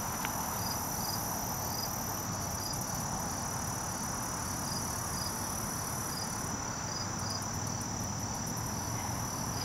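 Crickets and other insects trilling steadily: a constant high trill with short repeated chirps over it.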